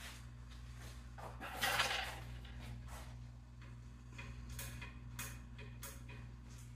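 Light handling noises from the snowblower's handlebar controls: a short scraping rustle about a second and a half in, then four light clicks, over a steady low hum.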